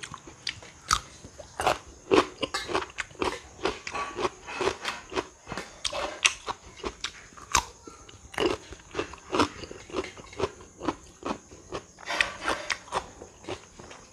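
Close-up crunching and chewing of crisp raw fruit: irregular sharp crunchy bites, about two a second.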